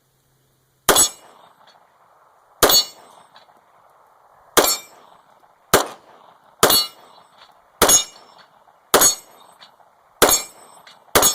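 CZ 75 9mm pistol fired nine times at a steady pace, about one shot every second or so, with metal plate targets ringing between the shots. The last shot empties the magazine.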